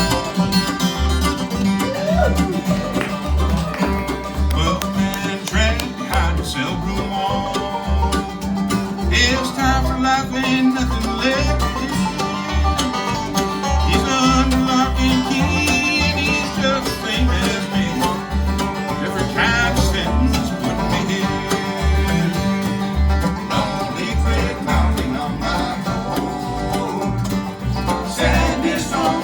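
Live bluegrass band playing an instrumental passage: banjo, guitar, mandolin and dobro picking over bass notes falling on a steady beat.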